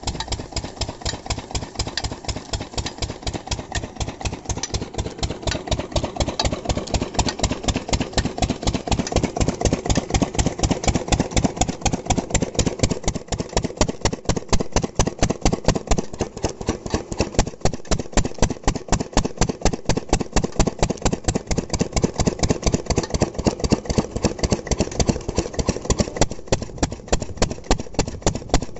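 Old Lister-type single-cylinder diesel engine running steadily with a regular, even exhaust beat, under load driving an irrigation water pump.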